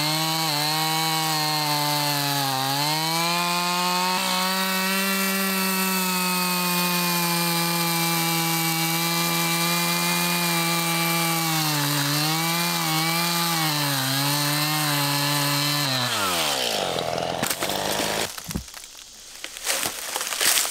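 Stihl MS271 Farm Boss two-stroke chainsaw running at full throttle through an oak log, its pitch dipping a few times as it bogs in the cut. About sixteen seconds in the engine winds down and stops, followed by knocks and rustling.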